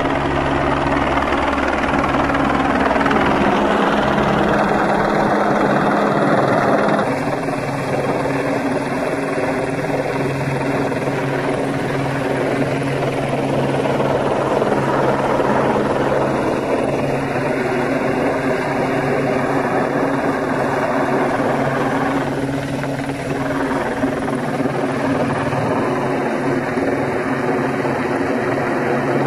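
Helicopter hovering close overhead: loud, steady rotor and engine noise with a low, even hum.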